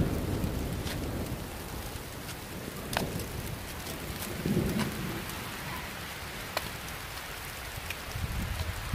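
Rain falling steadily, with single drops ticking sharply now and then. Low thunder rumbles, fading at the start, swelling again about halfway through and once more near the end.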